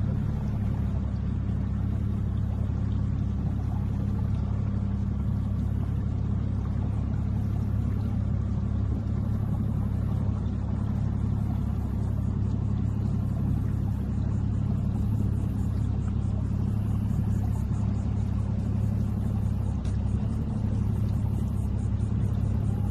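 A steady low hum with a rumble, unchanging in level and pitch.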